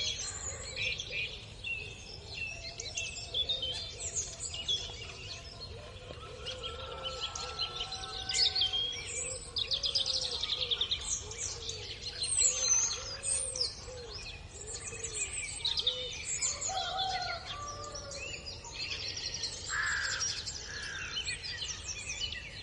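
Several songbirds singing and calling at once, a dense mixed chorus of rapid chirps, trills and whistles overlapping one another, with some lower whistled notes among them.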